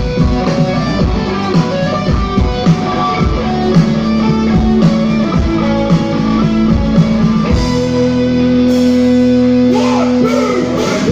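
Rock band playing live on electric guitars, bass guitar and drums. About seven and a half seconds in, the drums stop and the guitars hold a ringing chord until near the end.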